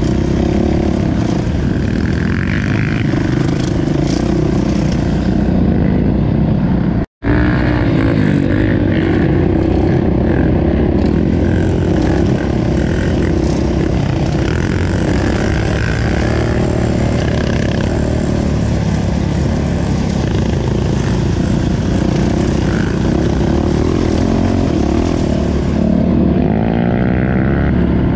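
Off-road dirt bike engine running close to the microphone as it rides the trail, the revs rising and falling. The sound drops out for an instant about seven seconds in.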